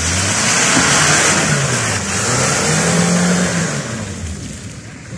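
1998 Toyota Hilux Surf SUV's engine revving hard as it drives through mud, over a loud hiss of wheels churning the mud. The engine note rises about three seconds in, then the sound fades near the end as the vehicle pulls away.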